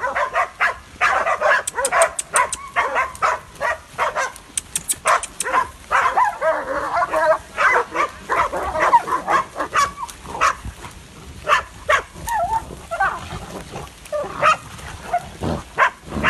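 A pack of hunting dogs, dogos Argentinos and pit bulls, barking in rapid, excited volleys while baying a wild boar.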